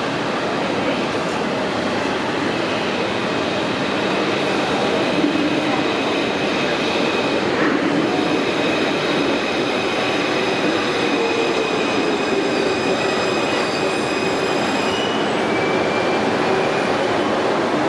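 Steady din of an underground metro platform beside a stopped AS-02 train with its doors open. From about four seconds in, a faint high-pitched whine sits over it and cuts off suddenly about fifteen seconds in.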